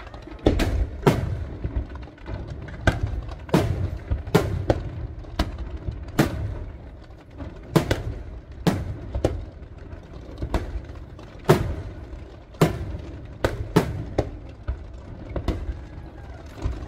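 Professional display fireworks: aerial shells bursting with sharp bangs in quick, irregular succession, roughly one or two a second, over a low steady rumble.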